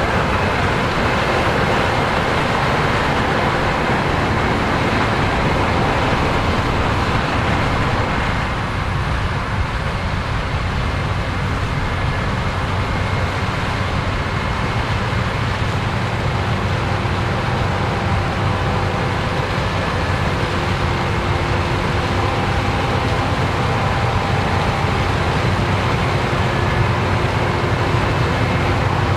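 Case IH AF10 combine, with its 15.9-litre engine and 16-row corn head, running steadily while harvesting corn.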